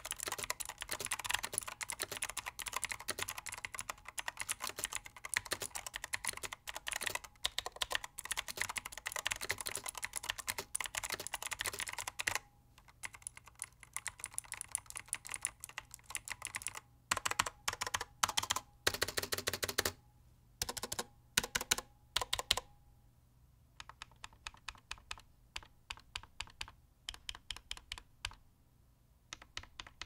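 Razer BlackWidow V3 Pro mechanical keyboard with clicky Razer Green switches, typed on fast for about twelve seconds, then keys pressed singly and in short runs. The stabilized keys ping metallically, and the ping resonates in the keyboard housing, a sign of stabilizers and switches that are not factory-lubed.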